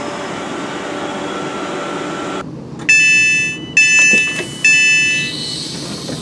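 London Northwestern Railway Class 350 electric train humming at the platform. Then its door chime sounds three loud electronic tones, each under a second, as the door Open button is pressed.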